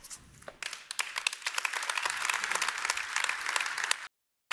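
Audience applauding, starting about half a second in and quickly filling out into steady clapping. The sound cuts out completely for a moment near the end.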